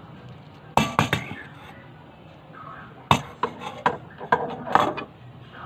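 Aluminium foil wrapper of a block of cream cheese being handled and scraped with a knife over a steel bowl: sharp crinkles and clicks, in a short cluster about a second in and a longer run from about three to five seconds in.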